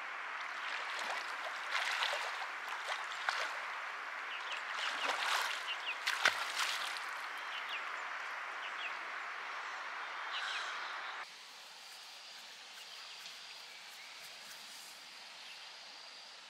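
Water running and splashing, with many small knocks and splashes and one louder splash about six seconds in. About eleven seconds in the sound cuts suddenly to a quieter outdoor background with a faint steady high tone.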